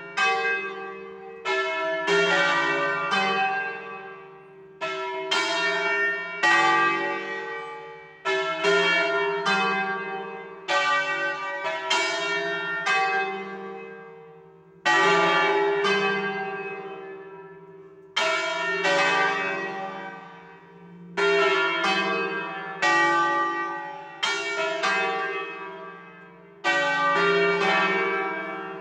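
The four smaller bells of a five-bell church peal tuned in C (cast 1839, two recast 1948) are swung full circle on large wheels in an Italian distesa. They strike one after another in an irregular, overlapping pattern, roughly one stroke every one to two seconds, and each stroke rings out and slowly fades under the next.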